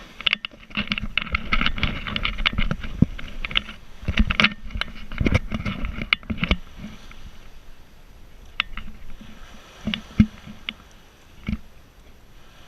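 A boat engine running, with irregular sharp knocks and splashes over it, busiest in the first half.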